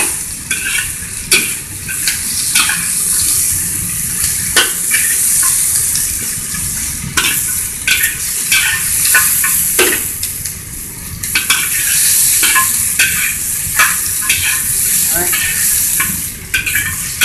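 Diced celery, pea pods and mushrooms sizzling in a hot wok with a steady hiss, stir-fried with a metal spatula that scrapes and knocks against the wok again and again.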